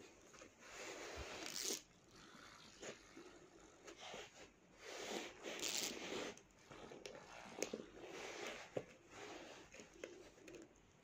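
A dog chewing and mouthing a plush toy: irregular snuffling breaths and soft chewing bites, with a few sharp clicks.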